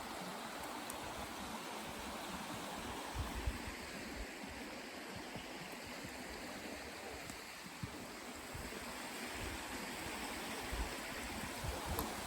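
Steady rush of flowing stream water, with a few faint low thumps.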